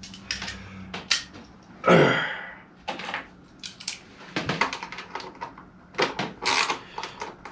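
Hand tools clicking and clinking: metal sockets handled from a socket organiser and a ratchet fitted onto a bolt, as a series of short irregular clicks. One louder, brief sound about two seconds in stands out among them.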